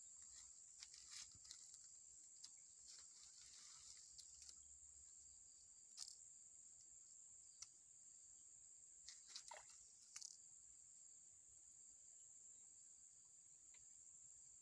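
Faint, steady high-pitched insect chorus, crickets or similar, with a few soft clicks and rustles scattered through it.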